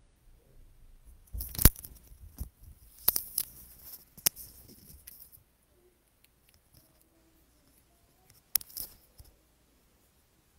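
Handling noise on the microphone: a series of sharp clicks and rustles, bunched in the first half and again about three-quarters of the way in, as wired earbuds and their cable are handled and fitted into the ears.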